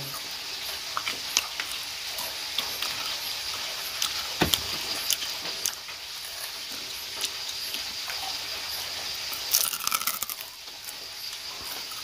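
Fish frying in hot oil: a steady sizzle with scattered crackles and pops, a few louder ones about four and a half seconds in and around ten seconds.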